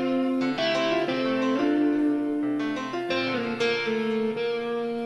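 Instrumental background music: a sequence of sustained, plucked-sounding chords changing every second or so.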